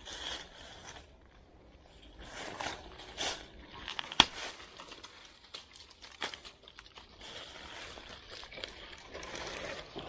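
Dry forest leaf litter rustling and crunching as someone moves and steps about on it, with one sharp, loud knock about four seconds in and a lighter one about two seconds later.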